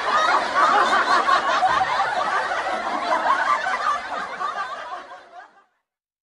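A group of people laughing, many voices at once, fading out near the end.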